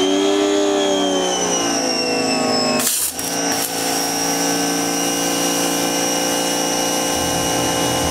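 Giraffe Tools 2200 PSI electric pressure washer motor and pump running with a high whine. The whine sags in pitch over the first second as the pump comes under load. There is a brief break about three seconds in, then it runs steadily.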